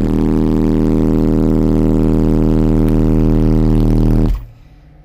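Car-audio subwoofers playing a 39 Hz test tone at full power inside a sealed truck cab for an SPL burp. It is one very loud, deep, buzzing note that holds steady and cuts off sharply about four seconds in. The system is running on its LTO battery bank alone, with the ultracapacitor bank disconnected.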